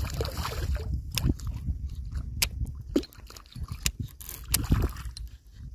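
Irregular sharp clicks and knocks of fishing gear being handled on a kayak while a hooked fish is reeled in, over a low wind rumble.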